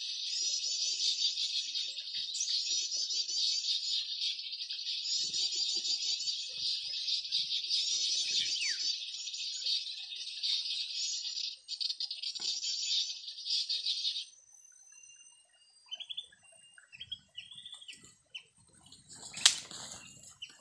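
A birdsong lure call played from an MP3 speaker: dense, high, buzzy chattering that cuts off abruptly about fourteen seconds in. A few short bird chirps follow. Near the end there is a burst of rustling wing-flapping with a sharp snap, from a bird stuck on the limed twigs struggling to get free.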